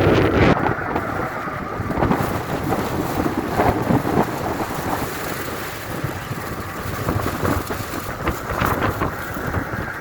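Strong wind rushing in gusts, loudest at the start and easing a little after about a second.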